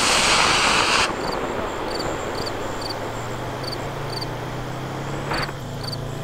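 C6-5 model rocket motor burning with a loud, even hiss, which cuts off about a second in as the motor burns out. Faint, evenly repeated insect chirps follow, and a low steady hum comes in about three seconds in.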